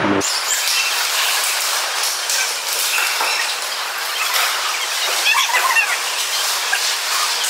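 Ice hockey play on an arena rink: skate blades scraping the ice and sticks and puck clicking, a steady hiss full of small clicks.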